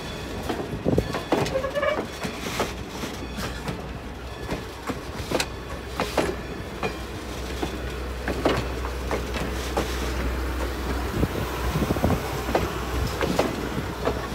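A train rolling past, its wheels clicking and knocking irregularly over the rail joints above a steady low rumble.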